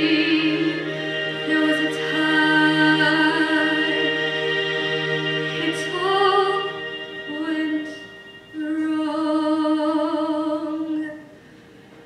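A young woman singing a slow ballad solo into a microphone, in long held phrases with vibrato, over sustained instrumental accompaniment. Her voice drops out about eleven seconds in, leaving the accompaniment playing quietly.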